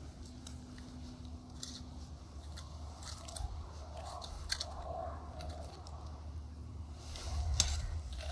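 Scattered crunches of snow and ice, with a louder run of crunching near the end as a stick is pushed down through slush into an ice-fishing hole.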